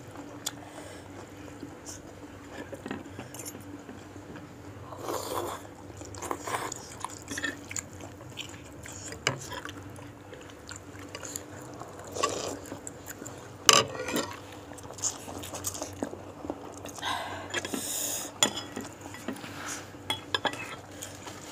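Close-up eating sounds from a bowl of bakso meatball soup: chewing, with a spoon and fork clinking against the bowl in scattered short clicks. The sharpest clink comes about 14 seconds in.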